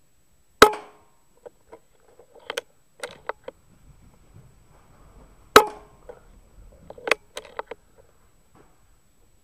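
Two sharp rifle shots about five seconds apart, each with a short ringing tail, and lighter clicks and knocks between them.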